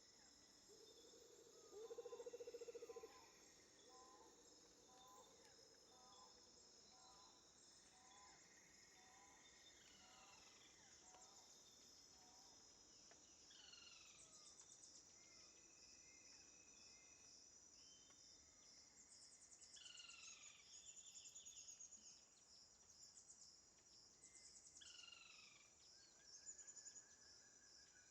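Faint jungle ambience: a steady, high-pitched chorus of insects with birds calling over it. For the first dozen seconds a short note repeats about once a second, followed by scattered falling whistles, and a low trill sounds briefly near the start.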